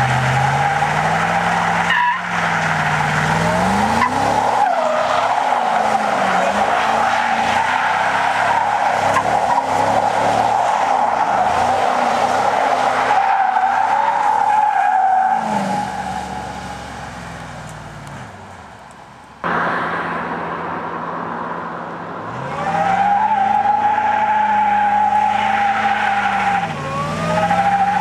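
Ford Lightning pickup's V8 doing a burnout: the engine revs high while the tyres spin and squeal, new tyres being broken in. The revs and squeal die away past the middle, the sound returns abruptly, and a second burnout follows with revs climbing and falling.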